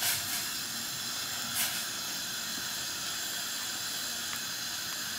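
Steady hiss of a steel saucepan of water boiling on a lit gas burner, with two brief splashes as beetroots are dropped in, one at the start and one about a second and a half in.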